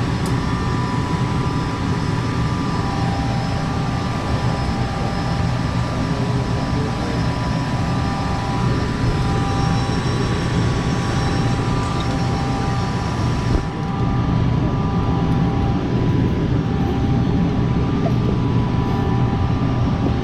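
Gas furnace running steadily: a constant noisy hum with a few steady whining tones. The upper part of the sound changes about two-thirds of the way through.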